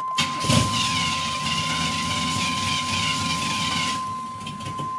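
A 1993 LT1 V8 cranks, catches about half a second in and runs unevenly, easing off around four seconds in. A steady high-pitched tone sounds throughout. This is a hard-start, stall-prone condition that the owner suspected was the Optispark distributor; it was later traced to a dirty idle air control valve.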